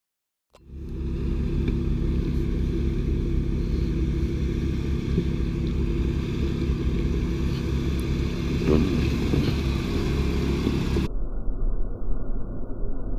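Jeep Wrangler's engine running steadily at low revs as it crawls over rock. It starts abruptly about half a second in and turns duller near the end.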